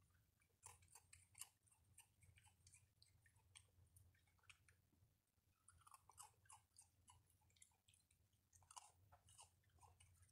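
Raccoon chewing and crunching food: a faint, irregular run of crisp crunches and clicks.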